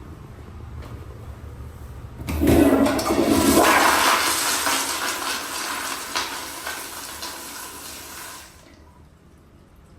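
Kohler Highcliff toilet flushing: a sudden loud rush of water starts about two seconds in, then gradually dies away and stops shortly before the end.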